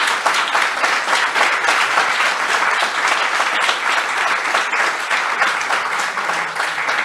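Audience applauding, a roomful of people clapping steadily.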